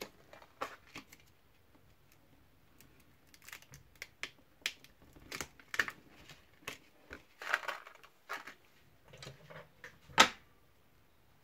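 Hands handling a clear stamp set in its plastic packaging: irregular crinkles, taps and clicks, with one louder sharp click near the end.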